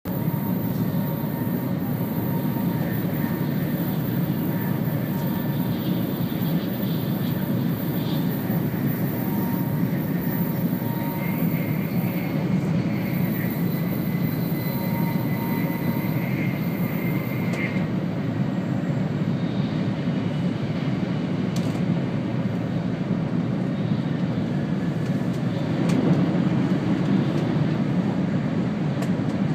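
Steady rumble of a Shinkansen bullet train running at speed, heard from inside the passenger cabin, growing a little louder near the end.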